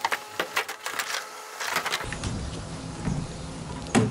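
Sharp clicks and knocks of the metal emergency roof hatch being worked free and lifted off a school bus roof. About halfway through, a steady low rumble takes over, with one loud thump near the end.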